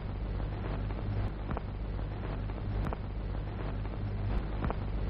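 Outdoor background noise: wind rumbling on the microphone over a low steady hum, with a few faint clicks.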